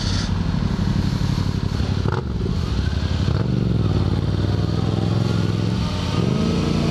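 Motorcycle engine running while riding slowly through city streets, heard from the rider's own bike. Its pitch drops about two seconds in and climbs again twice, as the throttle is rolled off and back on.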